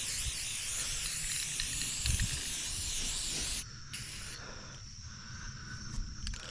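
Aerosol spray-paint can hissing as paint is sprayed: one long spray that stops about three and a half seconds in, then a short burst.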